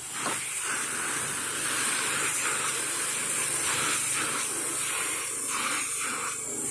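Pressure washer spray hissing steadily from the wand, with shifts in the spray sound as the jet moves across a surface and a low steady hum underneath.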